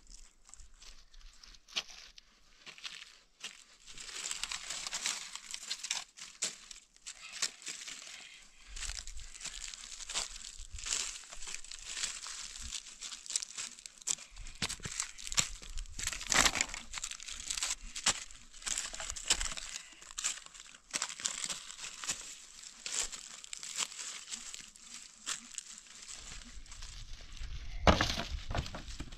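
Footsteps crunching through dry fallen leaves, with the rustle and crackle of leaves and dry sticks being handled; a louder knock near the end.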